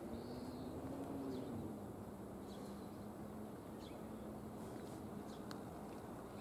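Birds chirping now and then, short high notes over a steady low hum that rises slightly and then settles about a second and a half in.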